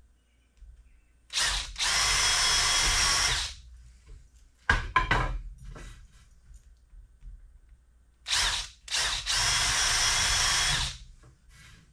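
Handheld cordless drill boring into a wooden strip: short trigger blips, then a steady run of about two seconds, repeated twice. A few sharp knocks and clicks come between the two runs.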